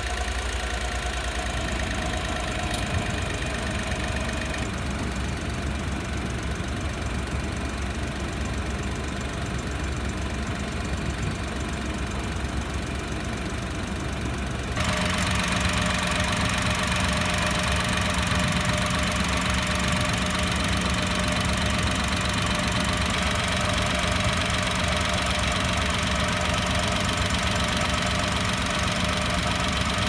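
Honda Acty HH5's small three-cylinder engine idling steadily with the hood hatch open during an air-conditioning refrigerant recharge. About halfway through the sound gets louder, with a steady hum added.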